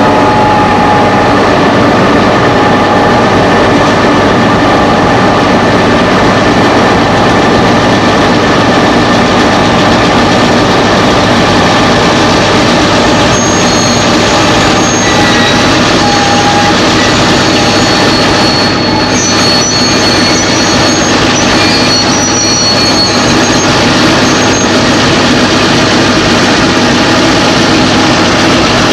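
Diesel-electric locomotives, Victorian Railways T class, running close by as they pull slowly past, with a steady loud engine drone. Thin high wheel squeals come and go about midway.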